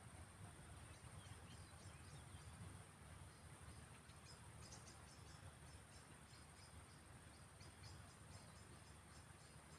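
Faint, rapid chirping of crickets or other field insects, in short repeated pulses, over a steady high insect hum and a low background rumble.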